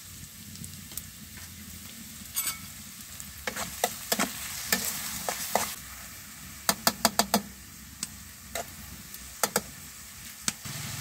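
Sliced onions and garlic paste sizzling in hot oil in a pan, while a metal spatula stirs them. From about two seconds in, the spatula scrapes and knocks against the pan in quick clusters of sharp clicks.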